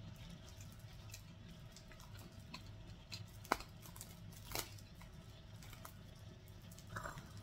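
Faint hand-handling sounds: a few small sharp clicks and light rustling as a begonia cutting is worked out of its shipping packaging, over a low steady room hum.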